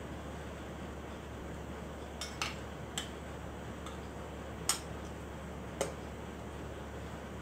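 Sharp metallic clicks and clinks as the solenoid is worked off a tractor starter motor with a T-wrench: about six scattered knocks of metal on metal, the loudest a little before five seconds in, over a steady low hum.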